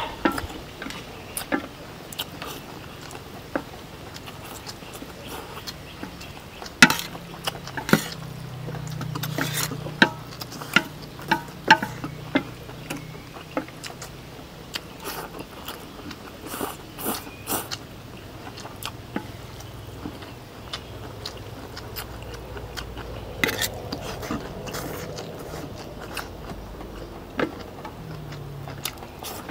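People chewing and eating plates of stir-fried beef pho noodles, with scattered sharp clicks throughout, most frequent in the first half.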